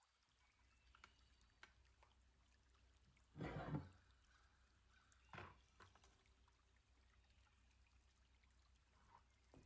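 Near silence, with a faint short noise about three and a half seconds in and a fainter one near five and a half seconds.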